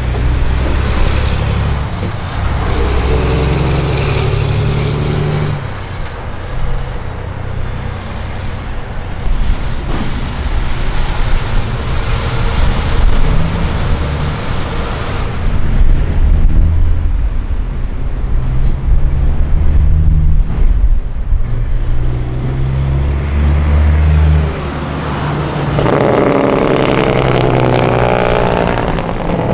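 Diesel engines of semi tractor-trailers running as several trucks in turn pull out and accelerate past, with the engine sound swelling and fading as each goes by.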